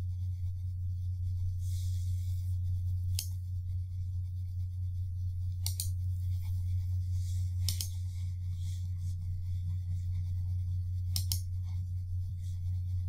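Computer mouse clicking while an option is picked from a list and a dialog is closed: four sharp clicks, the last three as quick double clicks. A steady low electrical hum runs underneath.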